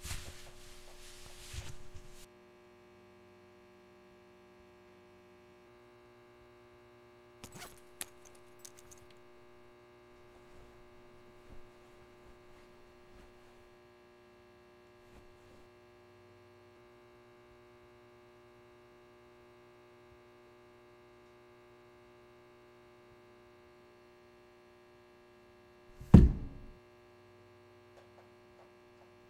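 Steady low electrical hum with a few small clicks and rustles, then one loud, heavy thud about three seconds before the end.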